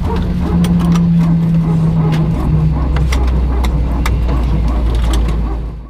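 Steady low engine drone inside a vehicle cabin, with scattered clicks and rattles. It cuts off abruptly near the end.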